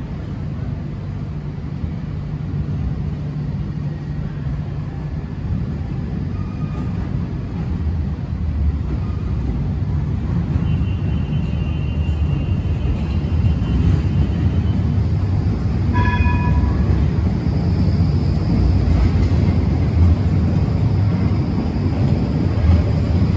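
Articulated tram approaching and passing through a premetro tunnel. The low rumble of its wheels on the rails grows steadily louder as it nears, with a few short high-pitched tones partway through.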